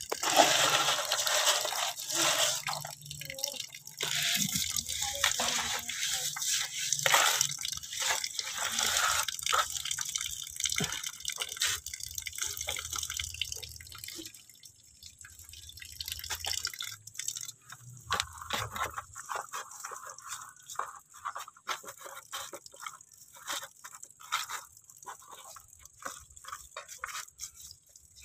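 Water running from a tap and splashing into a homemade bucket water filter, easing off after about ten seconds into dripping and small scattered clicks and crackles from hands working in the bucket.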